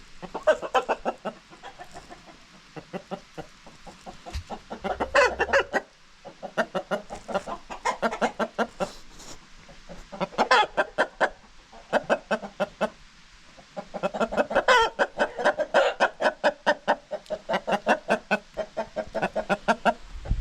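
Chickens clucking in rapid runs of short calls, several a second, with brief pauses between the runs.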